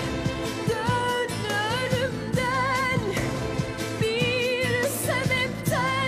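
A song: a solo vocal sings held notes with vibrato over a steady instrumental backing with a regular beat.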